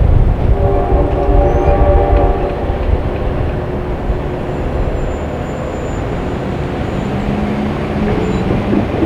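A train horn sounds a chord of several tones and fades out about two to three seconds in. The steady low rumble of the passing train carries on through the rest.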